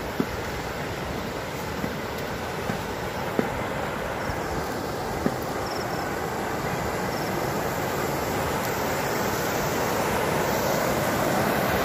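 Steady outdoor rushing noise that grows louder toward the end, with a few light knocks in the first half.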